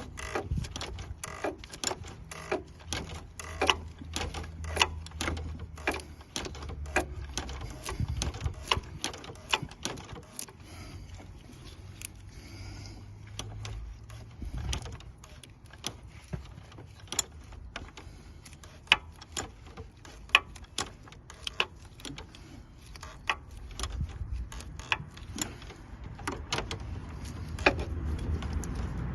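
Irregular sharp metallic clicks and clanks of a socket wrench working the oil filter housing cap of a Ford Fiesta 1.6 diesel, over a low hum that builds again near the end.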